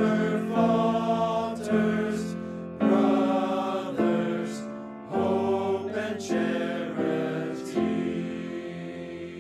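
A choir singing the closing phrases of a school hymn, the chords changing about once a second, ending on a long held final chord that fades.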